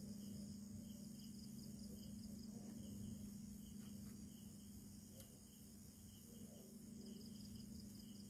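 Crickets chirping in a quiet night ambience: short chirps repeat a few times a second over a thin, steady high trill. A steady low hum runs underneath.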